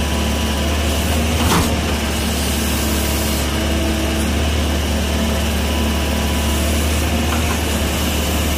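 Kobelco crawler excavator's diesel engine running steadily, heard from the operator's cab, with a single sharp knock about one and a half seconds in.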